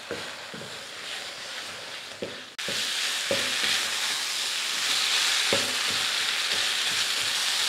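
Shredded-chicken stuffing sizzling in a nonstick pan over a low flame while a wooden spatula stirs and scrapes through it, with soft knocks of the spatula against the pan; the sizzle is its remaining liquid cooking off as it dries. The sizzle jumps louder suddenly about two and a half seconds in.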